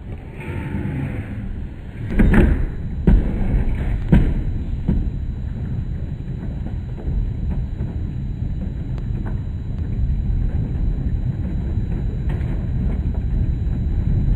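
Thunder after a nearby lightning flash: about two seconds in come several sharp claps over two seconds, followed by a steady low rolling rumble.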